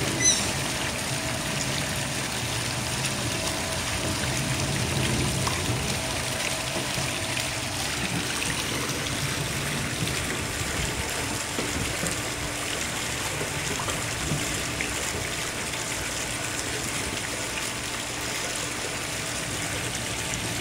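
Steady trickling and splashing of water running into a swimming pool, with a short high squeak just at the start.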